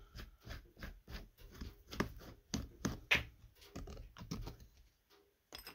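Screwdriver turning screws out of the metal body of a vacuum-operated Ski-Doo fuel pump: a run of small clicks and scrapes that stops about five seconds in.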